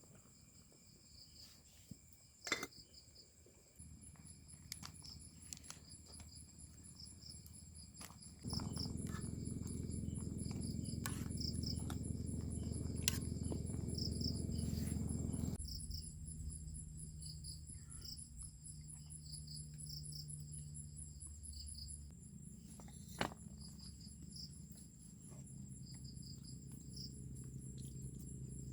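Crickets and other insects chirping and trilling in steady high tones and repeated pulsed chirps. A low rumble swells up about eight seconds in and drops away about seven seconds later, leaving a fainter low hum. A few sharp clicks are scattered through it.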